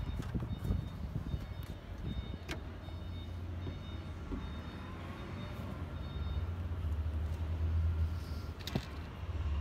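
Car bonnet being opened and propped on its metal stay rod: a few sharp clicks and knocks over a steady low rumble that swells near the end.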